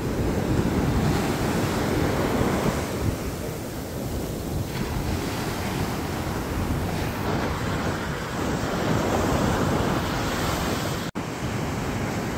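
Ocean surf breaking and washing up the shore, a steady rush that swells and eases with each wave, with wind on the microphone. A brief dropout cuts it near the end.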